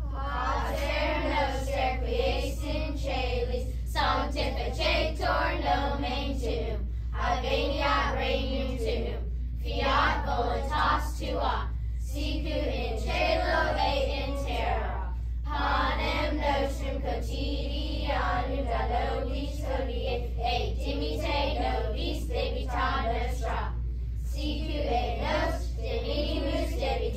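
A class of children singing together in unison, in phrases with short breaths between them.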